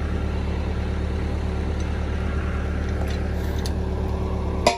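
Large tractor's diesel engine running steadily at idle, with a few light clicks and one sharper click near the end.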